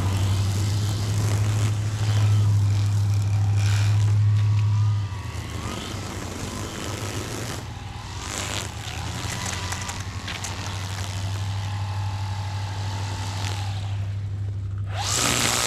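Motor-driven lawn equipment running with a steady low hum. It is louder for about the first five seconds, then eases to a softer, even run, and a short loud rush of noise comes near the end.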